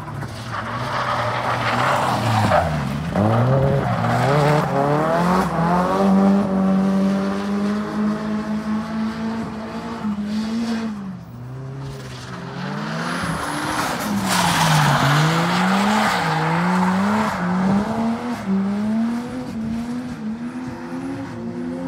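A drift car's engine revving hard, its pitch rising, holding and dropping over and over, with the tyres squealing as the car slides sideways. The tyre squeal is loudest twice: in the first few seconds and again a little past the middle.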